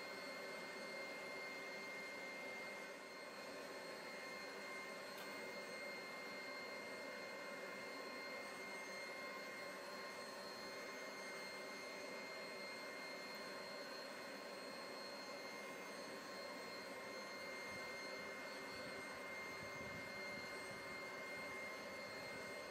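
Forge running: a steady rushing noise with a thin, high, steady whine over it.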